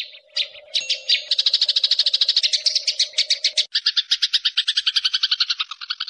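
A small bird, given as a sparrow, chirping in a fast, even series of short high notes, about a dozen a second. The pattern shifts to a fuller, lower-reaching chirp about two-thirds of the way in.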